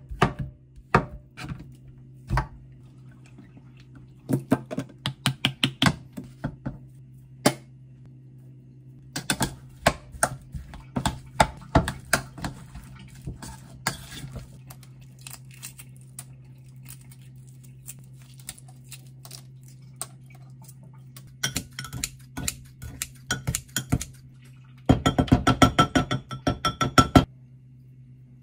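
Kitchen-utensil sounds in three runs of taps. First a knife chops boiled potato on a plastic cutting board in sharp taps, then a spoon mashes and stirs potato salad in a bowl. Near the end a quick, loud run of clinks against a glass mug rings out, all over a low steady hum.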